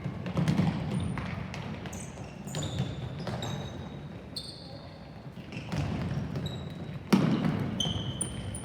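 Sneakers squeaking on an indoor court floor during play, with a ball thumping and a sharp loud impact about seven seconds in, over murmuring voices in a large hall.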